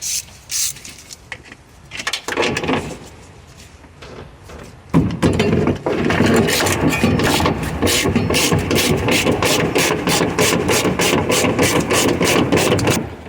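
Ratchet wrench with a 14 mm socket undoing a seat belt anchor bolt. A few separate knocks come first. From about five seconds in there is steady grinding, and then even ratcheting clicks at about four to five a second.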